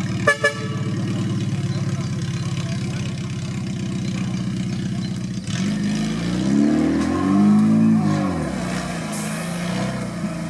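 Suzuki Samurai's engine running steadily at low revs as the 4x4 crawls over dirt mounds, then from about halfway revving up and down in two or three swells as it climbs through a dip. A short sharp sound rises above the engine just after the start.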